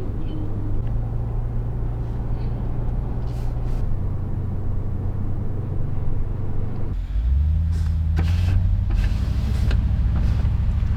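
Toyota Land Cruiser 250 on the move: a steady engine hum with road noise. The engine note drops about four seconds in, dips briefly about seven seconds in, then comes back louder, with a few short clicks near the end.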